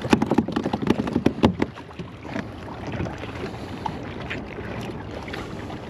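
Rapid clattering clicks and knocks for about the first two seconds as a freshly caught scup is handled and unhooked on a kayak, then softer wind on the microphone with a few scattered clicks.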